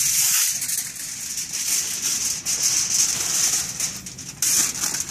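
Aluminium foil crinkling and rustling as a sheet is spread and pressed down over grill grates: an irregular run of crackles, louder near the end.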